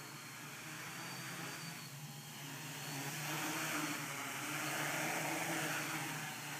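Hexcopter's six electric motors and propellers buzzing steadily in flight, growing louder about three seconds in as it comes closer.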